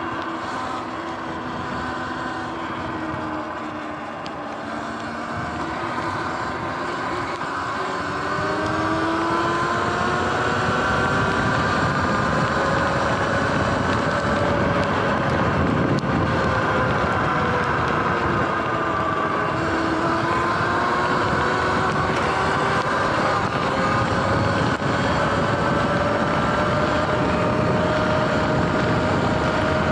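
Sur-Ron electric dirt bike under way on wet pavement: the electric motor's whine rises and falls in pitch with speed over a steady hiss of tyres and wind. It eases off and quietens about four seconds in, then picks up from about eight seconds and stays louder.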